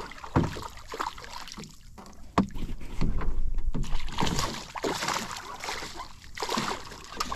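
A hooked snook thrashing and splashing at the water's surface right beside a small boat as it is landed by hand, in irregular splashes with a louder flurry in the middle.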